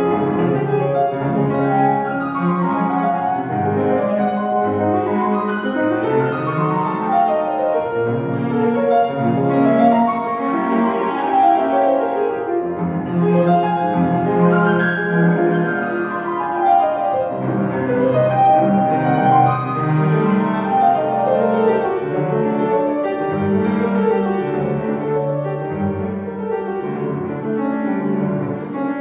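A cello and a grand piano playing classical chamber music together, with quick runs that sweep up and down.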